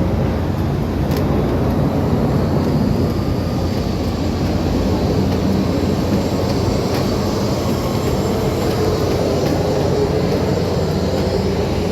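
Steady noise of jet aircraft on an airport apron, with a faint high whine that rises and falls a few seconds in.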